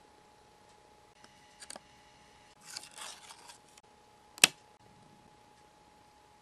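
Metal tweezers working a nail sticker off a clear plastic sticker sheet: a few small ticks, then a second of plastic crinkling, then one sharp click, the loudest sound, a little later.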